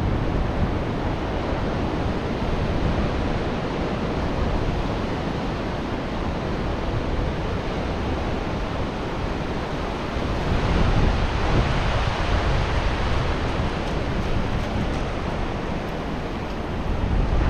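Ocean surf washing onto a beach: a steady rush of breaking waves that swells louder about ten seconds in as a bigger wave comes in.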